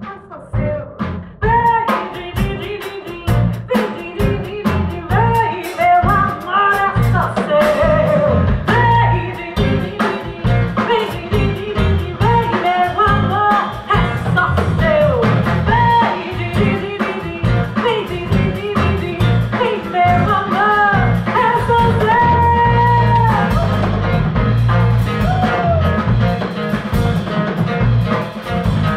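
Live band performing a song with a woman singing the lead over drum kit, bass and guitar, with a steady beat.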